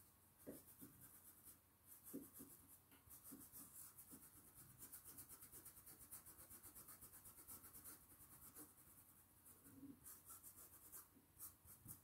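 Faint scratchy strokes of a small paintbrush rubbing paint into cloth, several quick short strokes a second, pausing briefly about eight seconds in before a few more.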